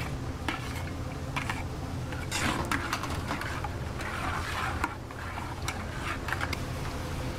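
Metal ladle and spatula clicking and scraping against a steel wok while a sauce is stirred: a run of irregular light clicks with short stretches of scraping.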